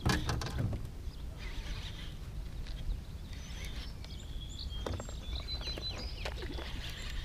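Wind rumbling steadily on the microphone, with faint high bird calls in the second half and a few light clicks.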